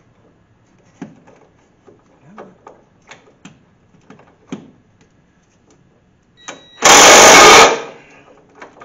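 Light clicks and knocks of metal tools and parts being handled, then about seven seconds in a loud, brief burst of under a second from a cordless impact wrench trying to loosen a strut rod nut.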